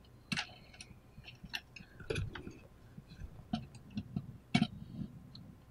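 Small, scattered plastic clicks and light rustling of wires as fingers work a two-pin KK connector onto a circuit-board pin header. The sharpest clicks come about two seconds in and about four and a half seconds in.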